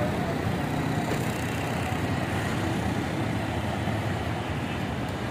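Steady outdoor beachfront ambience: an even, low rumble of noise with no single sound standing out.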